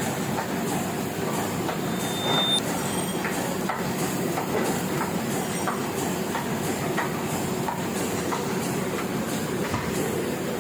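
Heidelberg sheet-fed offset printing press running: a steady mechanical clatter dense with sharp clicks, with a faint beat repeating about every two-thirds of a second as the machine cycles.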